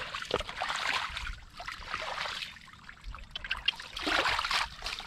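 Wet mud and shallow water being worked by hand, sloshing and trickling in uneven surges with small wet clicks.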